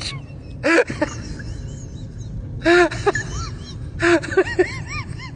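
A person's voice in a few short bursts of syllables, over a low steady background hum.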